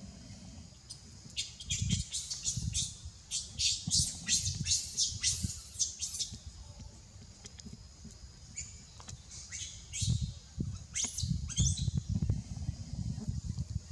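Baby macaque giving short, high-pitched squealing cries, a few a second, in two runs with a pause of a couple of seconds between them, over a low rumble.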